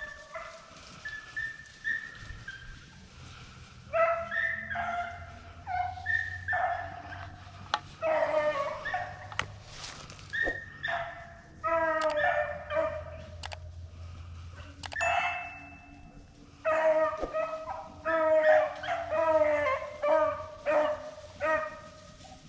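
Beagles baying in repeated bursts of barks and bawls, on the scent trail of a rabbit they have just struck.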